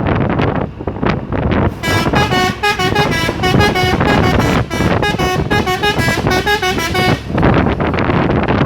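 Three-trumpet telolet musical horn on a Hino truck playing a tune of short stepping notes from about two seconds in, lasting about five seconds. Under it, wind rushing on the microphone and road noise.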